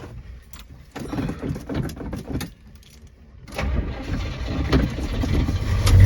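A 1971 car's engine being started on a freshly quick-charged battery: it cranks, catches about three and a half seconds in, then runs with a low rumble that grows louder.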